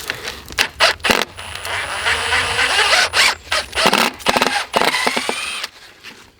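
Power drill running in short spells, backing screws out of 2x4 wooden concrete forms, with sharp knocks and clatter of the boards between them.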